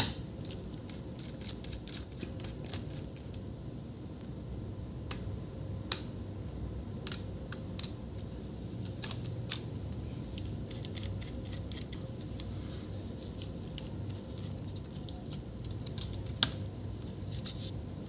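Scattered small clicks and taps of a screwdriver and fingers on a laptop motherboard as the mini Wi-Fi card's screw and antenna connectors are undone and the card is lifted out, over a steady low hum.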